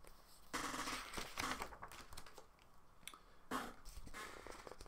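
Pages of a hardcover picture book being turned and handled: paper rustling and crinkling in two bursts, starting about half a second in and again about three and a half seconds in.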